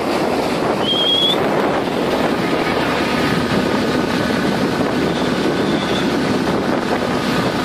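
Wind buffeting the microphone over steady rushing sea water from a ship moving through rough sea, with a brief high rising whistle about a second in.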